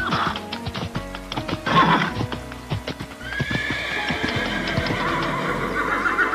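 Horse hooves clip-clopping with a long, wavering horse whinny in the second half, over cartoon background music.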